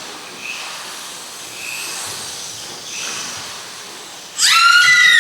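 Steady hiss for about four seconds, then a loud, high-pitched scream from a young female performer whose character has been caught in the factory machinery. The scream starts suddenly and is held.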